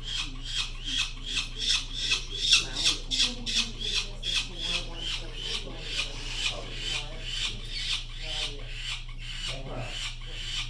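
Peregrine falcon chick screaming in a harsh, raspy call repeated about three times a second without a break. It is the alarm scream a chick uses to call its mother to defend the nest.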